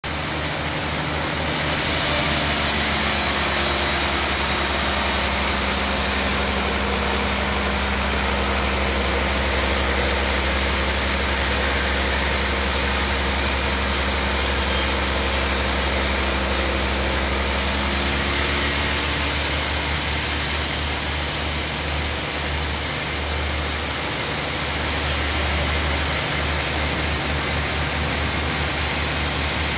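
Band sawmill running and its blade cutting lengthwise through a large log slab, a steady hissing rasp over the low drone of the saw's drive. The brightest part of the hiss comes in about a second and a half in and eases a little past halfway.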